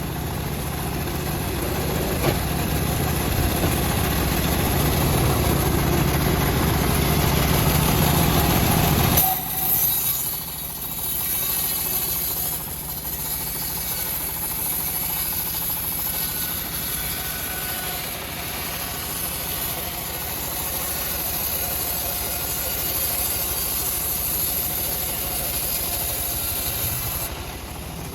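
Homemade bandsaw mill running while it saws a teak log. The sound is loud and heavy until about nine seconds in, then drops suddenly to a lighter, steady running.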